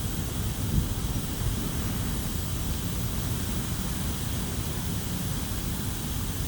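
Steady low rumble with an even hiss over it and one small crackle about a second in: a wood campfire burning against the background drone of aircraft and nearby industry.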